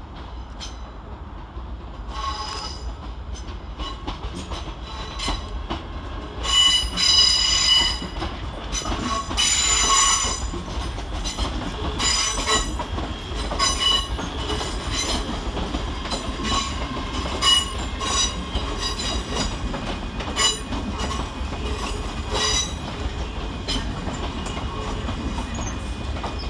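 ScotRail Class 385 electric multiple units arriving at a terminus platform, their wheels squealing in repeated high-pitched bursts over a low running rumble. The squeals are loudest about a third of the way in.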